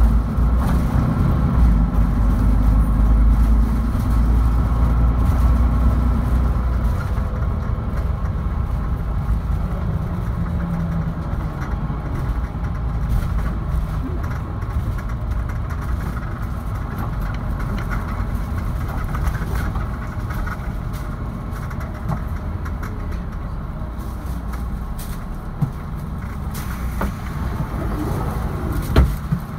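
Mercedes-Benz Citaro II city bus's diesel engine and drivetrain heard from inside the passenger cabin while driving. It runs loud and deep for the first six or seven seconds, then eases to a lower, steady running noise. A single sharp knock comes near the end.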